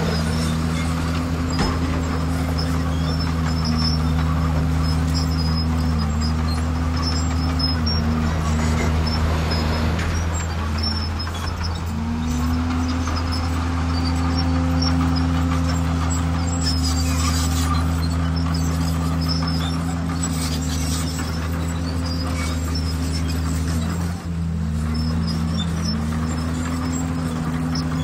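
Diesel engine of heavy earthmoving machinery running steadily, its pitch dropping briefly and climbing back about eleven seconds in and again about twenty-four seconds in.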